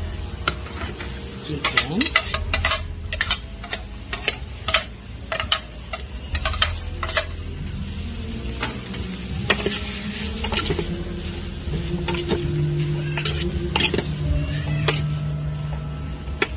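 A metal spoon scraping and clanking against an aluminium pot as shredded chicken goes in and is stirred into carrots sautéing in oil, with frying sizzle underneath. The strokes come in two bursts, one in the first half and another a little past the middle.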